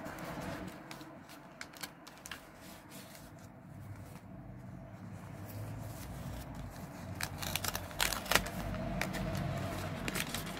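Paper and stationery being handled close to the microphone: rustling with small taps and clicks, busier and louder in the last few seconds.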